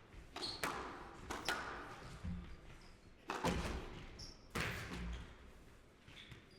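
Squash ball being hit by rackets and striking the court walls in a rally: irregular sharp hits, each followed by a short echo.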